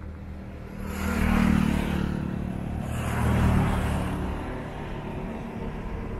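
Two road vehicles passing close by, one about a second in and another about three seconds in, each swelling and fading.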